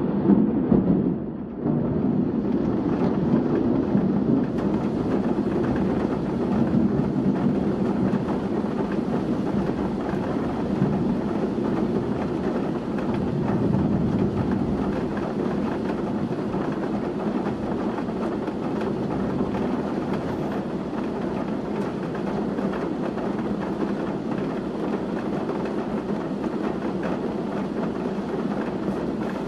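Heavy rain falling in strong, gusty wind: a steady, low rushing noise, with a short dip about a second and a half in.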